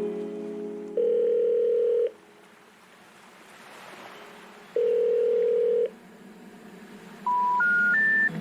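Electronic beep tones: two long steady beeps about four seconds apart, then three short beeps stepping up in pitch near the end, over a faint hiss, as background music fades out at the start.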